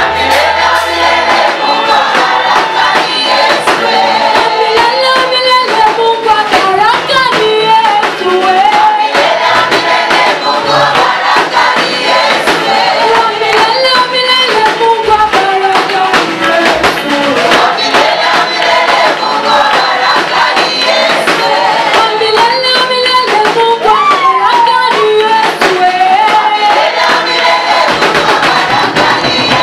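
A church choir singing a Swahili gospel worship song, several voices carrying the melody over instrumental backing with a steady beat.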